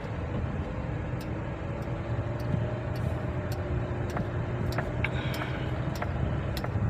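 Car engine running, a steady low rumble with a faint slowly wavering whine and a few scattered light clicks.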